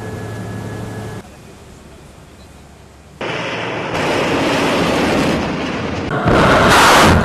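Missile launch: a loud rushing roar of rocket exhaust from about three seconds in, growing louder a second later. About six seconds in a still louder launch blast breaks in and stops abruptly near the end.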